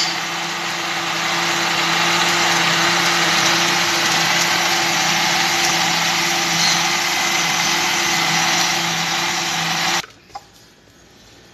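Electric countertop blender running steadily with a motor hum as it blends a pink smoothie, then switched off: the motor stops abruptly about ten seconds in, followed by a light knock.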